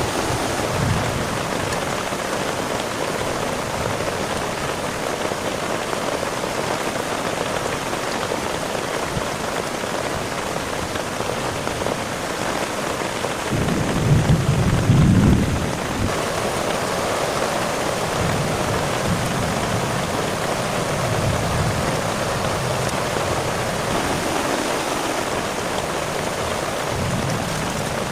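Heavy rain falling steadily, with a louder low rumble about halfway through.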